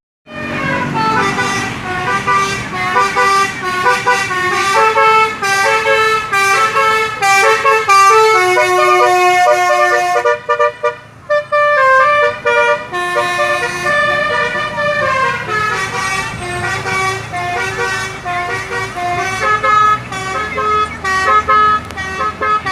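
Telolet basuri musical air horn playing a loud tune of short stepped notes, breaking off briefly about halfway through, then resuming the melody.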